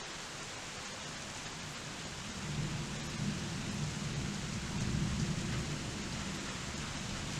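Steady rain with a low, rolling rumble of thunder that builds a couple of seconds in, swells, and eases off near the end.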